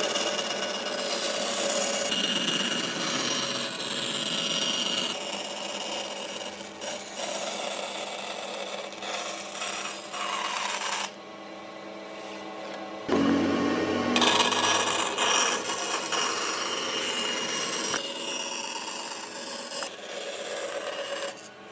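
Power tools working wood, a motor running with rasping cutting or sanding noise, heard in short clips that change abruptly. There is a quieter stretch of about two seconds just past the middle.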